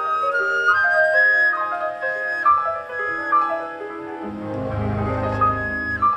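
Symphony orchestra playing classical music: a high melodic line moving note by note over held notes, with a low held note coming in about four seconds in.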